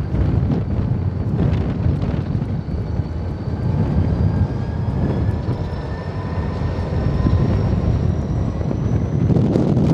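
Wheeling & Lake Erie diesel-electric freight locomotives rumbling slowly past, with wind buffeting the microphone. A faint whine slowly rises in pitch.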